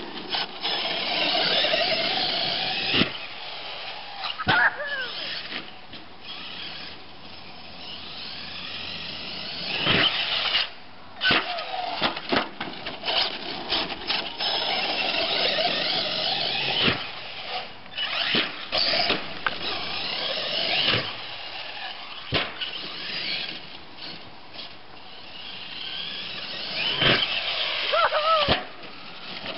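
Team Losi LST2 RC monster truck's 1800KV brushless motor on 5S, with its drivetrain, whining high and rising and falling in pitch as the truck speeds up and slows. Several sharp knocks from jumps and landings come through it.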